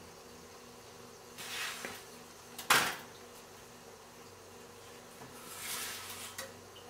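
A slotted spatula scraping across a flat griddle pan as it slides under a roti, twice. Between the scrapes comes one sharp clank of the spatula against the pan, the loudest sound. A steady faint hum runs underneath.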